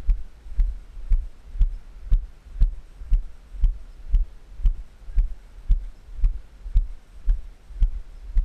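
Walking footsteps, about two a second, heard as dull low thumps through a head-mounted camera.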